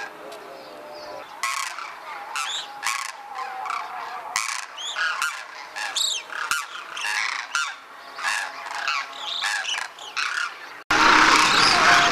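A flock of demoiselle cranes calling in flight: many overlapping calls, repeated over and over. Near the end the sound cuts suddenly to a loud, even noise.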